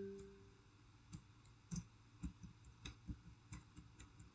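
Faint keystrokes on a computer keyboard: about a dozen irregular clicks of typing from about a second in. At the very start, the tail of a ringing tone fades out.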